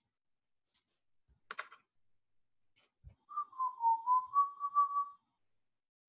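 A person whistling a few wavering notes for about two seconds. Before it come a single click and a soft thump.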